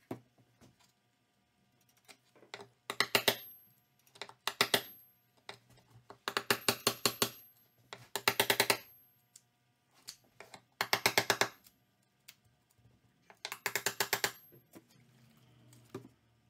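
Hammer tapping a chisel in about six short runs of quick, sharp blows, driving the blade under a hide-glued frame board to break the glue bond, which has been softened with denatured alcohol.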